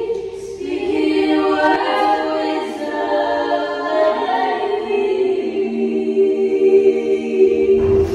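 Several voices singing unaccompanied in harmony, holding long notes that shift together every second or so, with a lower voice joining about halfway through, in a stairwell. The chord stops just before the end.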